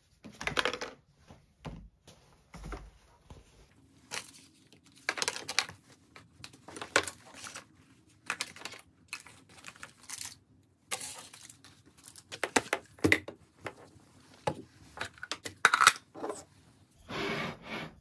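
Small objects being handled and shuffled aside on a desk: irregular rustles, light clicks and knocks as items are picked up and set down, with a longer scraping sound near the end.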